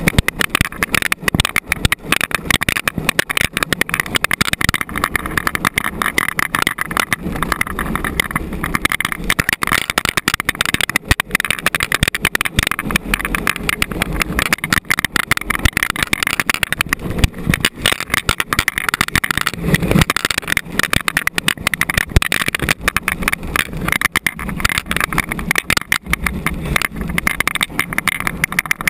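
Unpowered gravity luge cart rolling fast down a paved track: a continuous rumble of its wheels on the surface with a dense, irregular rattling and clattering from the cart.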